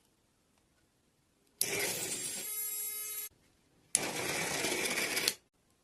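Small DC motor, as used in a homemade remote control car, running in two short spells of about a second and a half each, starting and stopping abruptly; a faint steady whine sounds in the first spell.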